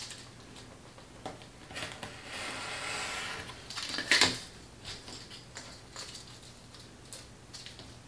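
Craft knife drawn through foam core board on a cutting mat: a scratchy cut lasting about a second and a half, then a few sharp taps as the blade and board knock against the mat, the loudest about four seconds in.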